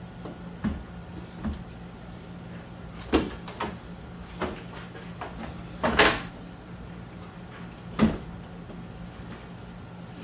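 A new Jeep Cherokee XJ radiator with plastic tanks knocking and clunking against the engine bay as it is lowered in and worked down onto its mounting pins. There are several scattered knocks, the loudest about six seconds in and another about eight seconds in.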